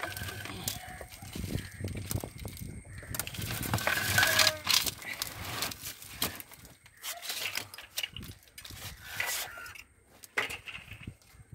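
Plastic drum scraping and knocking as a root-bound dragon fruit plant's soil and root ball are slid out of it, with soil and roots rustling and crumbling.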